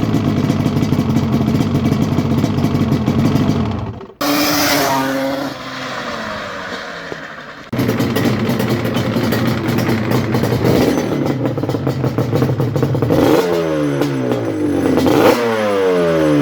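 Yamaha Banshee's 350cc twin-cylinder two-stroke engine running through an aftermarket exhaust, with the revs blipped up and falling away several times near the end. The sound breaks off abruptly about four seconds in to a quieter stretch where the revs fall, then cuts back to the engine running a few seconds later.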